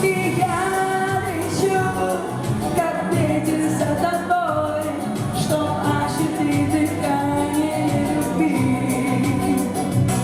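Pop song played over a steady beat, with a woman singing.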